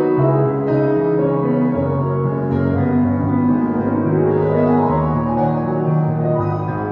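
Piano music with slow, held chords, the bass changing about every second.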